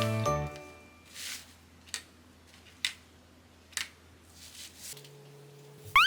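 Background music ending about half a second in. After it come a few faint clicks and a soft swish over a low steady hum that changes pitch about five seconds in, and a quick rising electronic chirp at the very end.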